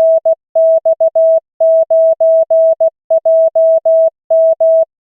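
Computer-generated Morse code (CW) practice tone: a single steady beep keyed into dots and dashes at 16 words per minute, spelling out one amateur-radio callsign, which ends just before the close.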